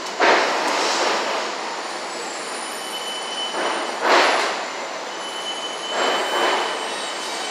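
New York City Subway W train of stainless-steel R160 cars moving alongside: a steady rolling rumble that swells three times. A thin, high wheel squeal comes in about halfway.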